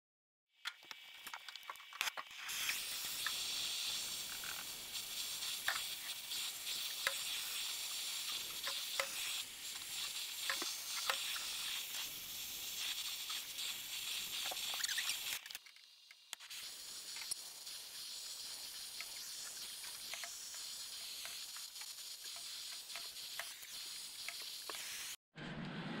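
Brazing torch flame hissing steadily on copper refrigerant line joints, with small crackles and ticks through the hiss. The hiss breaks off briefly about two-thirds of the way through, then carries on.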